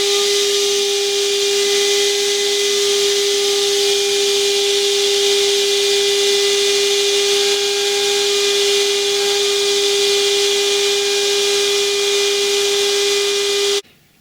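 Electric power tool running steadily at one pitch with a broad high hiss, stopping abruptly near the end.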